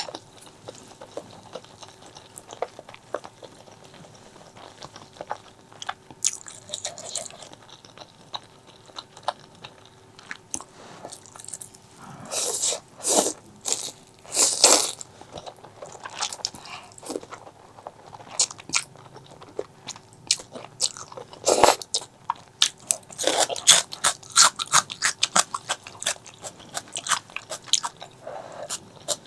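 Close-miked eating sounds: biting and chewing with many short crisp crunches and mouth clicks. A few longer, louder noisy stretches come about halfway through and again later.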